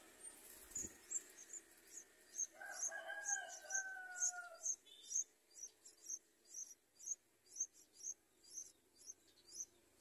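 Yellow-vented bulbul nestlings giving short, high-pitched begging cheeps, about two a second, with their mouths gaping for food. In the middle a rooster crows once for about two seconds, and a single low thump comes about a second in.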